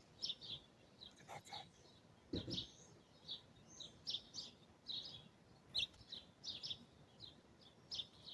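Songbirds chirping: faint, short, high chirps repeating about once or twice a second, with a brief low thud about two and a half seconds in.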